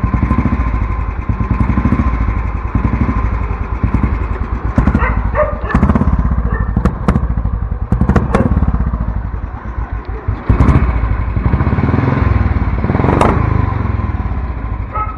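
Royal Enfield Lightning 535's single-cylinder engine running just after a kick start, with a fast, even low beat that gets a little louder about ten seconds in. A dog barks a couple of times about five seconds in.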